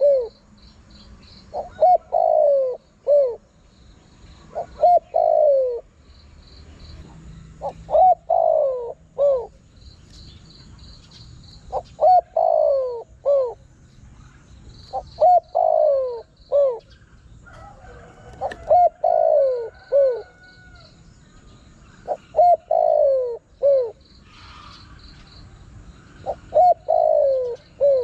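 Spotted dove cooing: a short phrase of a few coos, the longest one falling in pitch, repeated about every three and a half seconds. Faint high chirping runs behind it.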